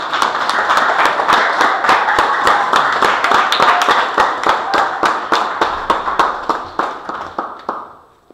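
Audience applauding, with sharp individual claps close by standing out at about four a second; the applause dies away just before the end.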